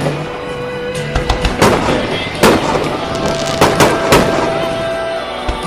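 Aerial fireworks shells bursting in a series of sharp bangs, about half a dozen, the loudest about 1.5, 2.5 and 4 seconds in, over background music with held notes.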